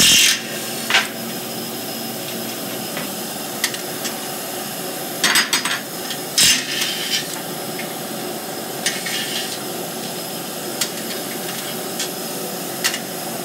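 Scattered sharp metal clanks and clinks of hand tools and bolts against a steel tractor wheel and its hub, over a steady machine hum.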